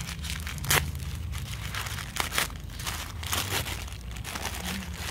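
White tissue paper crinkling and rustling as hands unwrap it from a packed candle, with a run of small crackles and a sharper crackle about 0.7 s in and again around 2.4 s in.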